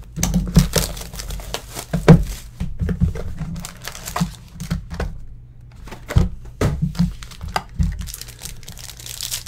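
Foil trading-card pack and its cardboard box being handled: irregular crinkling, rustling and light taps as a pack is pulled from the box and torn open.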